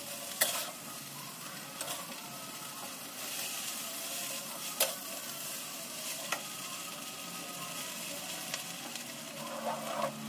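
Bakmi egg noodles sizzling in a hot wok as they are stir-fried. A metal spatula clinks and scrapes against the pan a few times.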